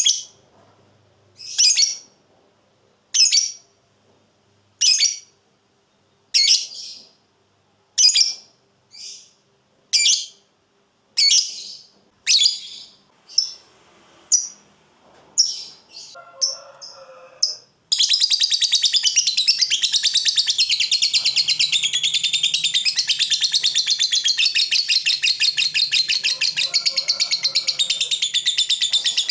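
Fighter lovebird calling: sharp single chirps about every second and a half, coming closer together, then from about two-thirds of the way in a long unbroken rapid chattering trill, the long 'ngekek' that lovebird keepers prize.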